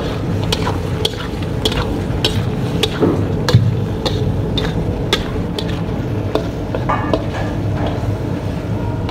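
Metal spatula scraping and clinking against a steel karahi as chicken and tomatoes are stirred over the heat, with irregular clinks about one or two a second over the sizzle of frying. The tomatoes' released juices are being cooked off.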